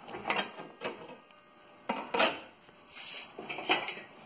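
A handful of light metallic clinks and knocks spread across a few seconds, as things are handled against a table saw's sheet-metal top.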